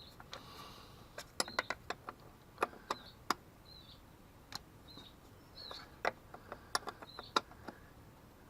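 Irregular sharp metallic clicks and clinks of a wrench working on a battery terminal in a skid steer's battery compartment. A small bird chirps repeatedly in the background.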